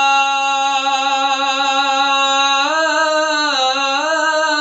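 A man singing an Urdu naat unaccompanied, holding one long vowel on a steady pitch for about two and a half seconds, then ornamenting it with small rises and falls in pitch.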